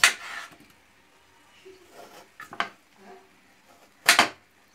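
Small knife cutting through a peeled potato and striking the ceramic plate beneath, three times: at the start, a sharp click about halfway, and the loudest near the end.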